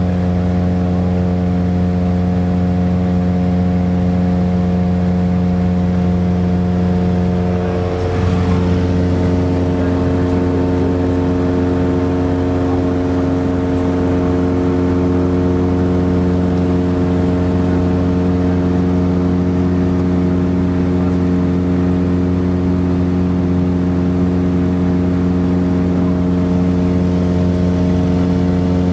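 Piper Seminole's twin piston engines and propellers droning steadily, heard inside the cabin. About eight seconds in the sound dips briefly and shifts slightly in pitch, then settles back to a steady drone.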